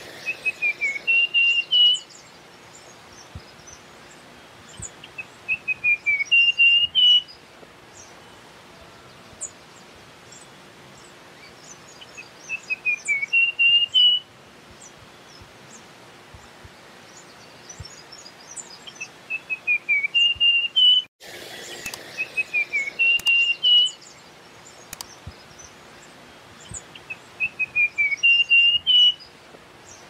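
Russet-crowned warbler singing: a song of quick clear notes that drops a little in pitch and then climbs to end higher, repeated about every six to seven seconds. Faint high chirps sound in the background between songs.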